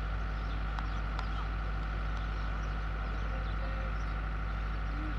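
Steady background hum with a steady higher buzz over it, and two faint clicks about a second in.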